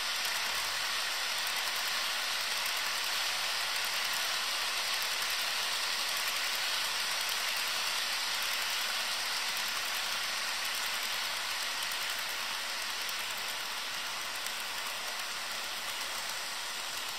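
HO scale model trains, an oil train of tank cars and an empty grain train of covered hoppers, running past each other on track: a steady noise of wheels and motors, a little quieter over the last few seconds.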